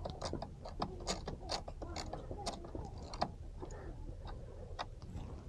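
Hand socket ratchet clicking in short, irregular strokes while a fastener is turned. The clicks come thick for about three seconds, then thin out to a few.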